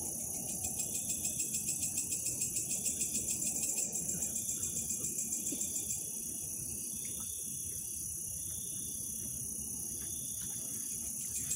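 Night insects, crickets, chirping as a steady high-pitched trill. The trill pulses quickly through roughly the first half, evens out, and starts pulsing again at the end.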